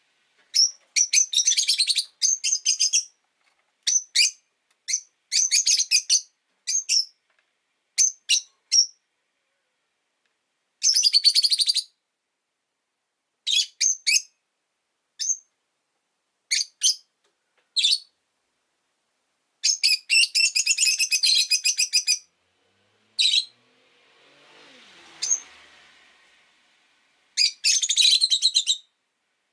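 Rosy-faced lovebirds chirping: shrill, rapid bursts of chirps in clusters up to a couple of seconds long, with short pauses between. A faint rush of noise swells and fades a little before the end.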